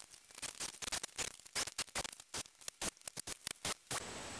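Irregular, fast sharp clicks and light taps of the aluminium hinge jamb and its screws being handled on a storm door. The clicks stop abruptly near the end, leaving a steady faint hiss.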